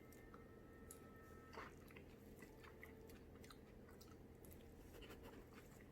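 Faint crunchy chewing of crispy kimchi pancake, a scatter of small crackling clicks with one slightly louder crunch about a second and a half in.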